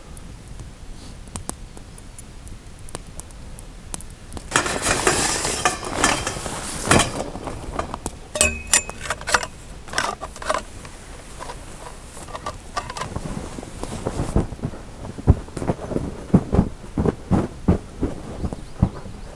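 A canvas bell tent being pitched: heavy canvas rustling and being hauled, with metal tent poles clinking together and a short ringing clank about halfway through, then a quick run of dull knocks near the end.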